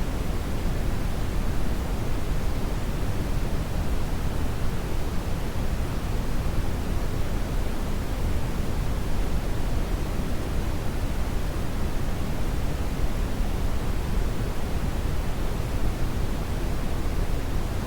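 Brown noise: a steady, even rushing hiss, deepest and strongest in the low end and fading toward the treble, with no change.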